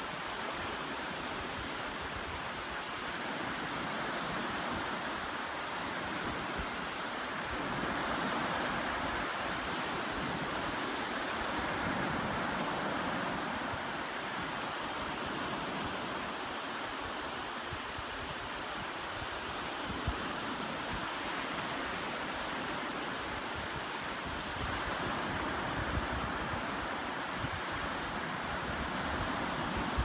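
Small ocean waves breaking and washing up a flat sandy beach: a steady surf rush that swells and eases as the sets roll in. Light wind rumbles on the microphone.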